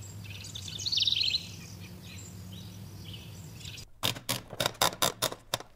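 Birds chirping, with a fast trill about a second in, over a steady low hum. About four seconds in, a rapid run of roughly a dozen sharp clacks follows.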